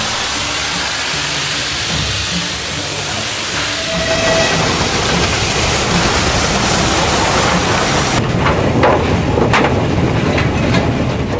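Steam locomotive at work: a steady, loud hiss of steam over the rumble of the train, growing louder about four seconds in, with a few sharp beats near the end.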